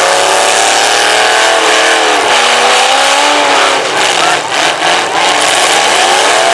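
Demolition derby car engines revving loudly, the pitch rising and falling over a dense wash of noise.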